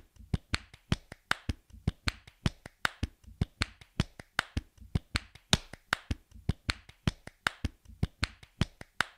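A steady percussive beat of sharp, dry clicks, about four a second, strong and soft hits alternating: a rhythm-only background track.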